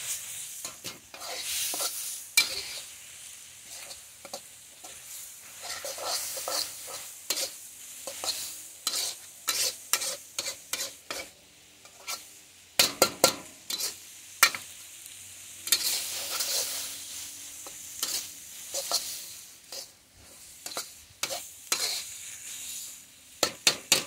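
Metal wok spatula scraping and clanking against a steel wok as noodles, chicken, tofu and broccoli are stir-fried, with the food sizzling underneath. The spatula strikes come irregularly, loudest in a run about halfway through and again near the end.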